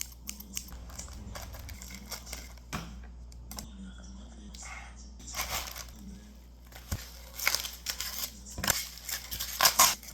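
Plastic packaging being handled, torn open and crinkled: scattered clicks and rustles, growing louder and busier in the second half.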